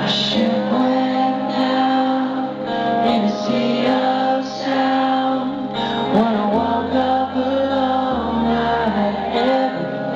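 Live band playing a song with guitar and singing, picked up from the crowd by a handheld camera's microphone.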